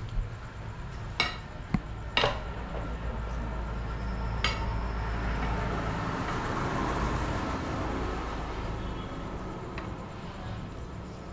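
Metal utensils and dishes clinking: about five separate, sharp clinks in the first half, then a swell of steady noise in the middle, all over a constant low hum.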